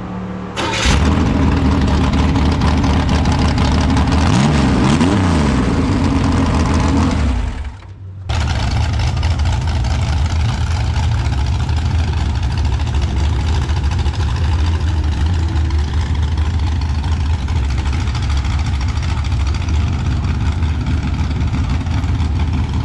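Mini rod pulling tractor's engine running loud, with a brief rise and fall in pitch about four to five seconds in. About eight seconds in it cuts off suddenly and an engine runs steadily after it.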